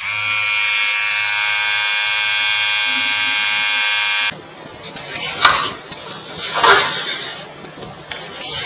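A loud, steady electric buzz lasts about four seconds and cuts off suddenly. It is followed by three rushing, noisy swells.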